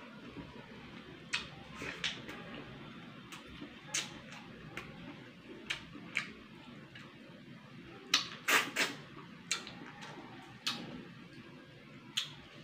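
Close-up eating sounds of snails in coconut milk being eaten from the shell by hand: irregular wet sucks, lip smacks and small clicks, with a louder run of them about eight seconds in.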